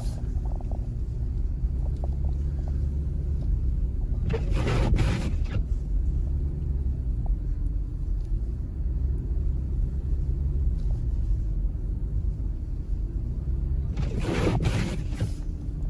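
Steady low rumble of a car's engine and tyres heard inside the cabin while driving slowly through deep, unplowed snow, with two brief bursts of hissing noise, one about four seconds in and one near the end.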